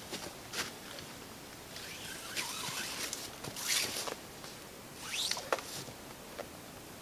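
Paracord ridgeline being pulled through the hands and tensioned: several short zipping rasps of cord sliding, one sweeping upward in pitch about five seconds in, with the loudest about three and a half seconds in.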